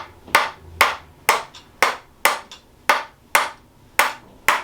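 Rapid, evenly spaced sharp taps on the sacroiliac joint in the lower back, about two a second, from chiropractic tapping meant to loosen the joint.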